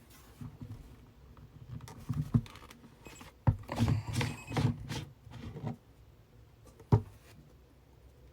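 Handling noise from a plastic portable blender bottle being moved about: irregular clicks, rattles and low bumps, with two sharp knocks about three and a half and seven seconds in.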